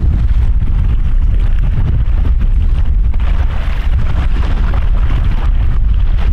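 Steady, heavy wind rumble on the microphone, with small lake waves washing onto a sandy shore, the wash a little stronger in the second half.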